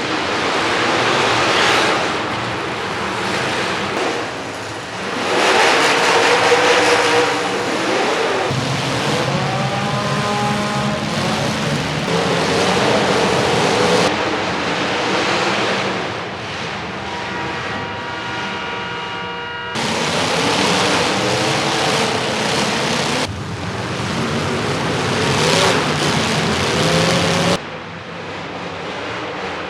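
Demolition derby cars' engines revving hard and rising and falling in pitch, over a loud wash of arena noise. The sound changes abruptly several times.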